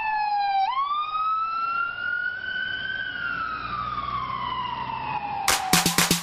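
Ambulance siren wailing. The pitch dips, sweeps up over a couple of seconds, then slides slowly back down. It ends in a quick rattle of clicks just before it cuts off.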